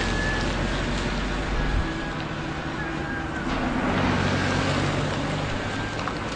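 Vehicle engine running: a steady low drone over outdoor noise, with short high tones recurring about once a second.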